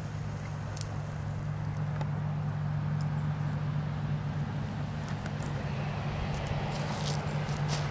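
Small wood fire crackling, with scattered sharp pops that come more thickly near the end, over a steady low hum.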